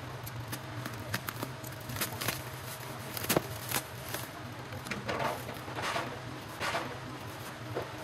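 Bubble wrap and a plastic mailer bag crackling and rustling as a boxed toy truck is pulled out of them, with many sharp crackles and a few longer crinkles about five to seven seconds in. A low steady hum sits underneath.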